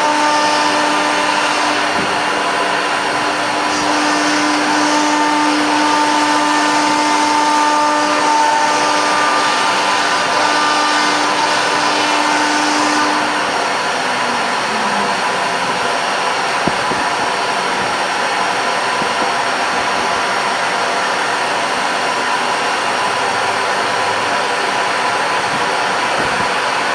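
CNC router engraving a door: the spindle and cutting make a steady machine noise with steady pitched tones. About halfway through the lower tone glides down and stops, leaving steady machine and cutting noise.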